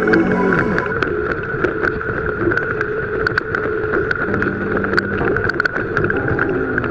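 Yanmar ViO17 mini excavator's small diesel engine running steadily with a constant hydraulic whine. Scattered short clicks and knocks run through it, and the pitch sags briefly near the start and again near the end as the load changes.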